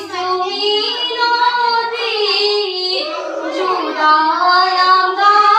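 A group of teenage schoolgirls singing an Assamese biya naam (traditional wedding song) together, in long held notes that slide in pitch.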